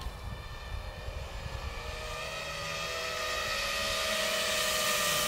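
Eachine Wizard X220 quadcopter's brushless motors and propellers whining in flight, the buzz growing louder from about two seconds in.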